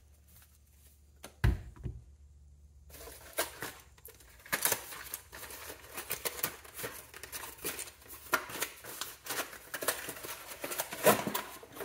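Packaging rustling and crinkling with many small clicks and taps as parts of a cordless tool kit are unpacked and handled. One low thump comes about one and a half seconds in, after a quiet start.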